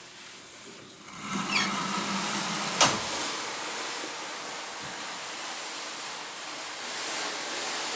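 A sliding glass balcony door opening, with a short squeak as it slides about a second in and a sharp knock just under three seconds in. Once it is open, a steady rush of wind and sea comes in.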